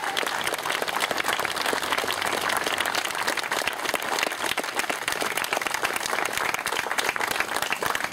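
A crowd applauding: many people clapping their hands together, dense and steady.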